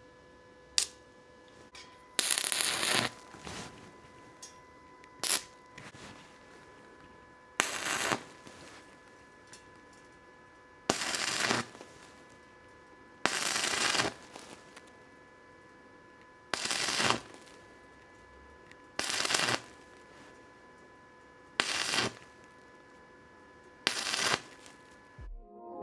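Welding arc crackling in about nine short bursts, each under a second and a couple of seconds apart, as tack or stitch welds are laid on thin scrap steel. Faint steady electrical hum underneath.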